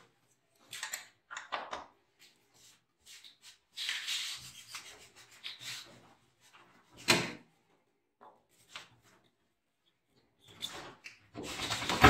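Scraping, rubbing and clicking as the tub's transit bolts are worked loose from the back of an LG front-load washing machine with a hand tool, unlocking the drum. It comes in short irregular bouts, with a sharper knock about seven seconds in.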